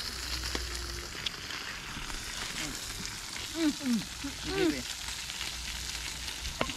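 Food sizzling on a barbecue grill: a steady hiss with scattered small crackles. A few faint, short pitched sounds rise and fall a little past the middle.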